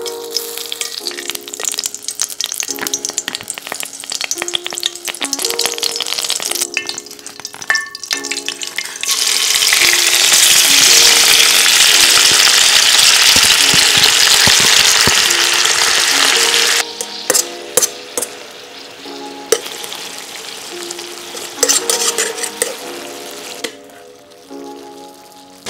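Oil sizzling and spitting in an iron wok over a charcoal shichirin. About nine seconds in it jumps to a loud, steady sizzle as seafood and vegetables are tipped in, then settles after about eight seconds to quieter frying with the clicks of tongs against the pan. Background music plays under it.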